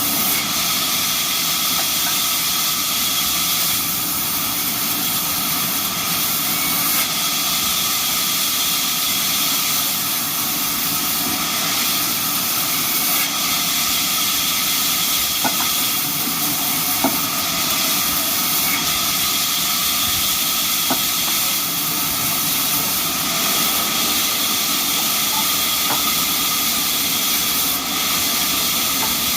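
Band sawmill running steadily: a continuous loud hiss with several fixed whining tones and a few faint ticks.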